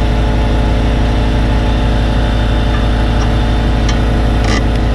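An engine idling steadily, with a couple of light clicks near the end.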